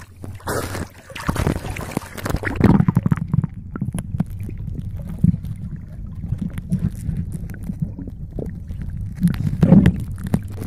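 Sea water splashing around a fishing net at the surface, then muffled low gurgling and rumbling as the microphone goes under the water, with another splash near the end.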